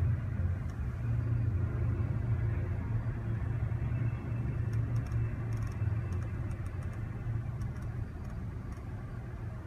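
Steady low rumble of a motor vehicle, easing slightly over the last couple of seconds, with a few faint light ticks about halfway through.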